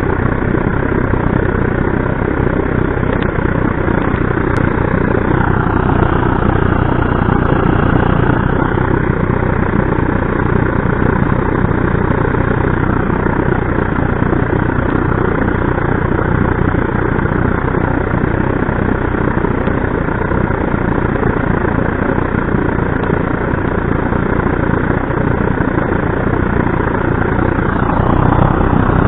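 Burmos pressurised paraffin blowlamp running on diesel, its burner flame making a steady, even rushing noise; it gets slightly louder near the end.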